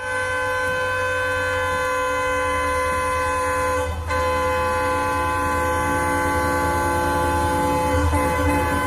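EMD diesel locomotive's horn sounding one long continuous blast, broken briefly about four seconds in, over the low rumble of the train running through.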